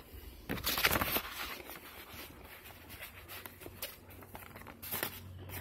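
Paper greeting cards being handled and shuffled: soft, scattered rustles and light taps, busiest about a second in and again near the end.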